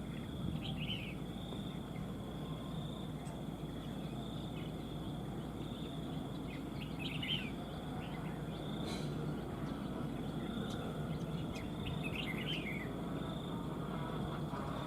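Red-whiskered bulbul giving three short bursts of rapid chirping notes a few seconds apart, over an insect trilling steadily at one high pitch.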